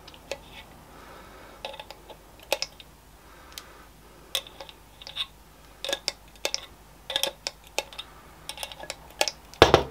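Pump oil can's trigger lever clicking irregularly, often in quick little runs, as oil is squirted down the jaws of a three-jaw lathe chuck. A single louder knock near the end.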